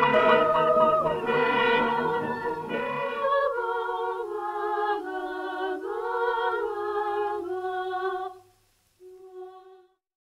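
Film-soundtrack music with singing. About three seconds in, the fuller accompaniment drops away and a lone voice carries a slow, wavering melody until about eight seconds in. One short last note follows near the end.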